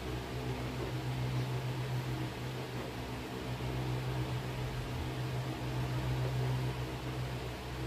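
A steady low machine hum with an even hiss, unchanging throughout, like a small motor running.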